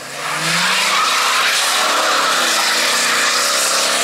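Ford Crown Victoria Police Interceptor with its 4.6-litre V8 accelerating past on a wet road. The engine note rises under throttle over a loud, steady hiss of tyres on wet tarmac.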